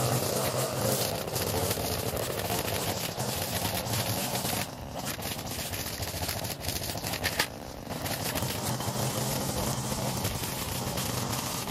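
Small gasoline lawn-equipment engine running steadily, dipping briefly twice near the middle.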